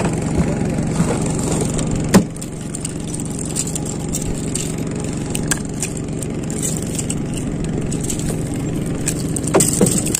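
Small single-cylinder petrol engine of a wooden fishing boat idling steadily. There is a sharp click about two seconds in and a few lighter clicks near the end.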